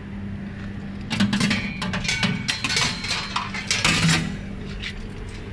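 Wire spiral coils of a snack vending machine clinking and rattling against the tray and their clips as they are handled, a dense run of sharp clicks from about a second in to past four seconds. A steady low hum runs underneath.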